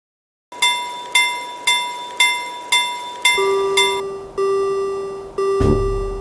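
Japanese railroad crossing warning bell, a cartoon sound effect, starting about half a second in with a bright ding about twice a second. Partway through it changes to a lower two-note tone held for about a second at a time, and near the end music with a heavy bass comes in over it.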